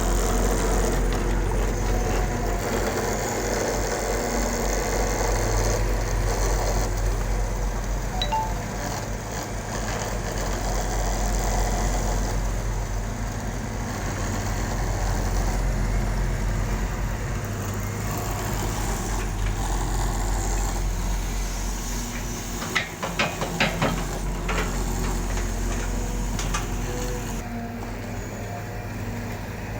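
Caterpillar excavator's diesel engine running steadily as it works, with a brief cluster of sharp knocks about three-quarters of the way through.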